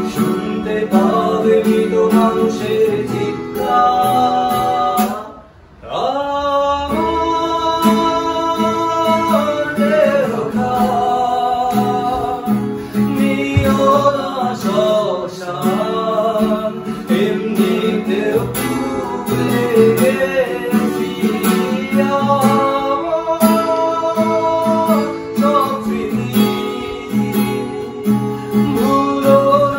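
A man singing to a strummed acoustic guitar. The sound drops away briefly about five seconds in, then the singing and guitar start again.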